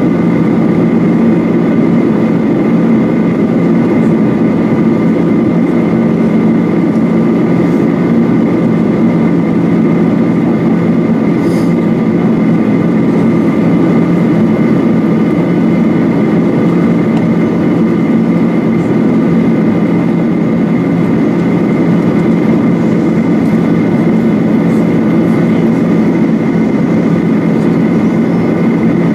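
Boeing 737-800 cabin noise from a window seat over the wing: the steady drone of the CFM56-7B turbofan engines and rushing airflow, with two faint steady high whines from the engines, as the jet flies its approach.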